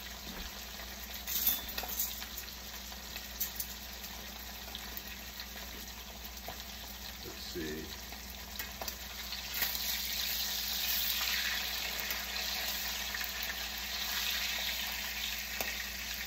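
Steaks frying in hot oil in a pan: a steady sizzle that grows louder about ten seconds in, with a few light clicks near the start.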